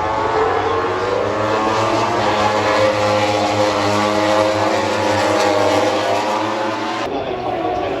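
Several racing motorcycle engines running at high revs together, their pitches rising and falling as the bikes pass. The sound changes abruptly about seven seconds in.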